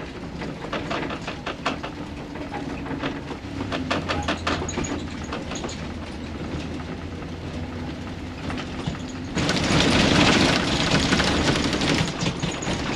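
Motorhome driving slowly over a rough dirt road, heard from inside the cab: a steady low engine hum under constant rattling and clicking of the cabin and its contents. About nine seconds in, a louder rushing noise sets in suddenly.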